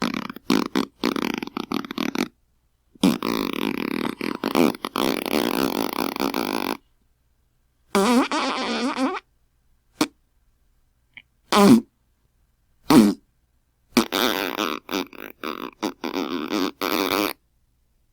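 A string of fart sound effects, one after another with dead silence between: a quick cluster of short ones at the start, then two long fluttering ones of three to four seconds, a one-second one and two short single blasts.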